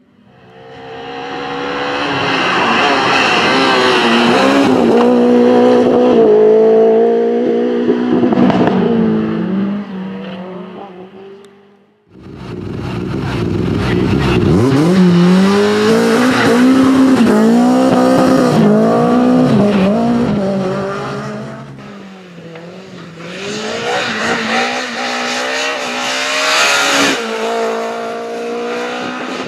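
Renault Clio Williams Group A rally cars' 2.0-litre four-cylinder engines at full throttle, the pitch repeatedly climbing and dropping through gear changes and lifts. There are three runs: the first builds to loud and fades, then cuts off abruptly about twelve seconds in; a second starts at once; a third comes in after a brief dip in the last third.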